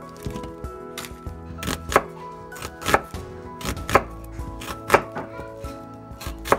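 Chef's knife slicing through an onion and knocking on the cutting board, a sharp knock about once a second, with background music behind.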